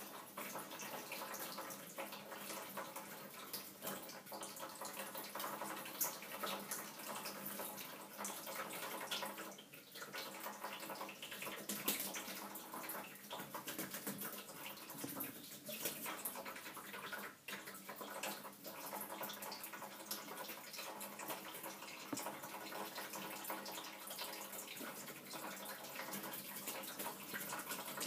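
Kitchen tap running in a thin stream into a shallow tray of water, with scattered splashes and patters as a budgerigar bathes and flaps its wings in it.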